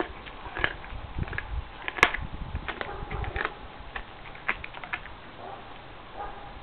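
Siberian husky chewing on a whole raw chicken: irregular crunches and clicks of teeth on flesh and bone, the sharpest crack about two seconds in.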